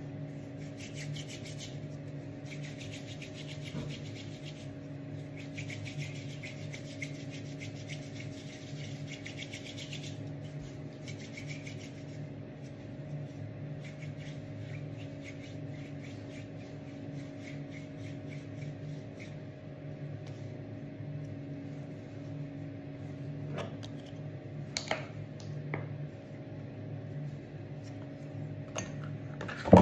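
Hands rubbing together, working in hand cream: a rhythmic, dry rasping, strongest in the first ten seconds, over a steady low hum. A few short clicks near the end as the cream tube is handled.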